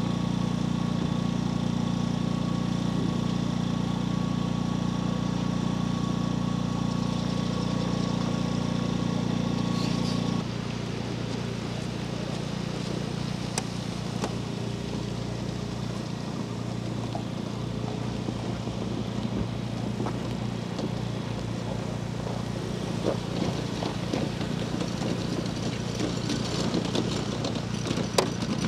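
An engine idling steadily. About ten seconds in it cuts off abruptly to a quieter, rougher engine hum with a few sharp knocks and clicks.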